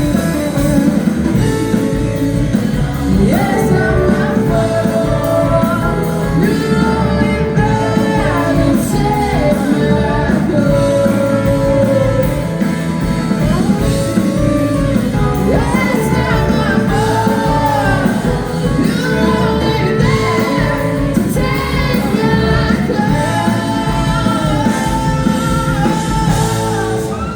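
Live rock band playing: sung vocals over electric guitar and bass, loud and steady.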